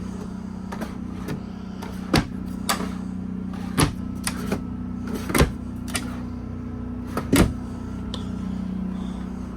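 Motorhome kitchen cabinet doors and drawers being opened and shut: about ten sharp clicks and knocks of latches and doors. Underneath runs a steady low hum from the air conditioner.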